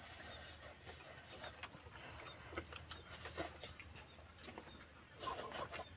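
Faint eating sounds: soft chewing and smacking as instant noodles are picked up and eaten by hand, with scattered small clicks and a slightly louder stretch near the end.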